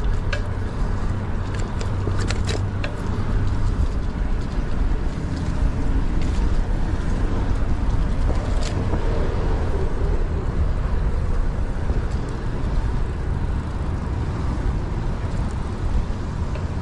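Road bicycle being ridden on pavement: a steady, rumbling rush of wind and road noise, with a few sharp clicks in the first three seconds.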